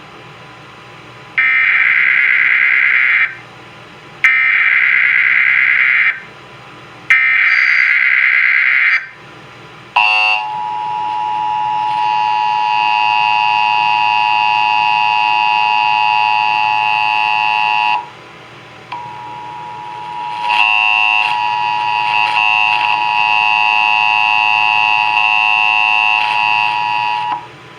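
Emergency Alert System broadcast header: three short bursts of screeching digital data tones, each about two seconds long, then the EAS attention signal, a loud steady two-tone alarm. The alarm tone drops out for about a second partway through, comes back, and stops just before the end.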